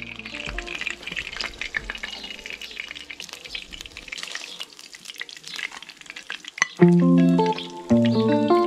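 Egg and meat frying in a pan, sizzling and spitting, with a spatula scraping and tapping in the pan. Loud background music comes in about seven seconds in.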